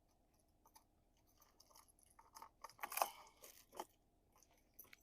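Plastic lure packaging crinkling and crackling as it is handled, in short irregular crackles that are loudest about three seconds in.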